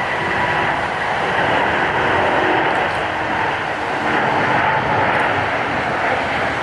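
Jet airliner's engines, a loud steady roar with faint whining tones in it.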